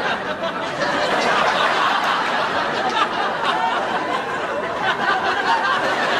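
Studio audience laughing: a steady wash of many voices laughing together.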